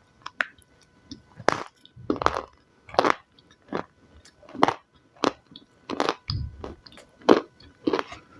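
Close-miked crunchy chewing of salad, a steady run of separate crisp crunches somewhat more than one a second.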